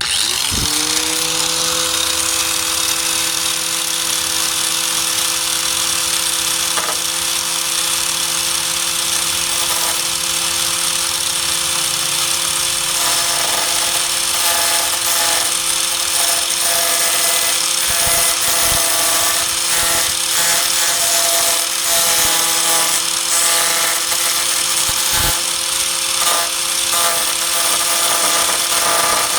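Electric 4-1/2 in. angle grinder with a thin cutting disc spinning up to speed and then running steadily, a high whine over a loud hiss, as it cuts the rusted sheet steel out of the tailgate corner.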